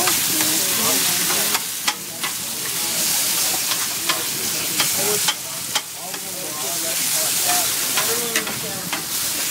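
Sloppy joe meat sizzling on a steel griddle while a plastic scraper pushes and chops it, scraping and tapping against the steel in irregular sharp clicks.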